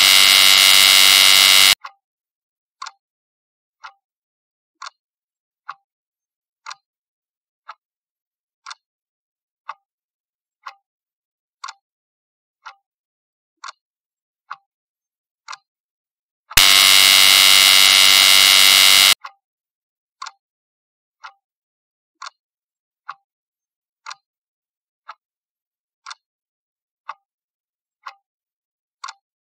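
Quiz countdown-timer sound effect: a clock ticking about once a second, broken twice by a loud buzzer, about two seconds near the start and about two and a half seconds just past the middle, sounding as time runs out and the answer is revealed.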